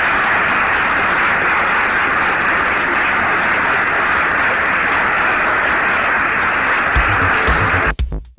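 Large audience applauding steadily at the close of a speech. About seven seconds in, a heavy electronic bass beat comes in, and the applause cuts off abruptly a second later.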